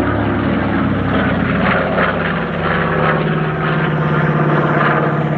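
North American B-25 Mitchell's twin Wright R-2600 radial piston engines and propellers flying past. The engine pitch drops during the first second, then holds steady.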